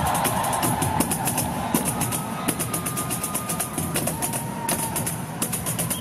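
Several pandeiros, Brazilian frame drums with metal jingles, played together in a fast rhythm: drumhead strikes under a constant bright rattle of jingles.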